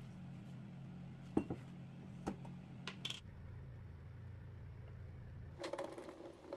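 A few scattered clinks and taps of jars and lids being handled, then near the end a short clatter of peeled garlic cloves tipped from a stainless strainer into a steel cup, with a slight metallic ring. A steady low hum underneath stops shortly before the clatter.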